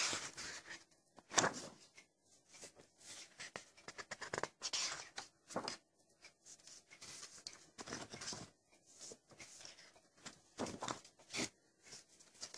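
Paper pages of a spiral-bound workbook being turned and handled, rustling and flapping in a series of short irregular bursts.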